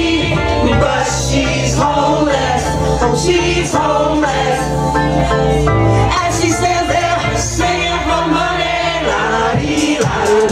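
A woman singing live into a handheld microphone over a house-music backing track with a strong bass line.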